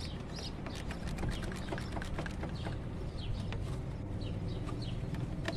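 Ratchet clicking while loosening the nut on a car battery's negative terminal clamp, with birds chirping over and over in the background.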